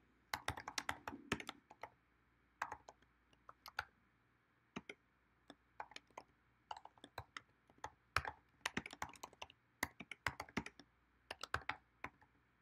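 Typing on a computer keyboard: runs of key clicks broken by short pauses.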